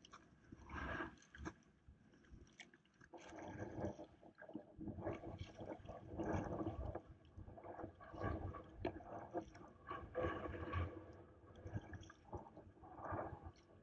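Sea kayak paddle strokes: the blades dip and pull through the water about every two seconds, with splashing and water gurgling along the hull.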